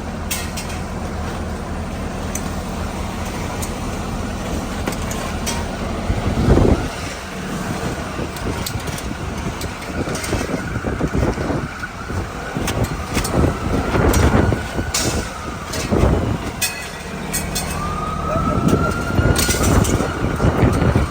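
Fire truck engines idling with a steady low hum under street noise. Scattered sharp clanks and knocks come from the metal tent pipes being taken apart. Two brief high whining tones rise and fall in the second half.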